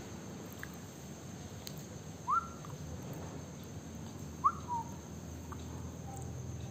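Maltese–Spitz cross puppy giving two short, high-pitched whines about two seconds apart, each sliding sharply up in pitch; the second trails off downward.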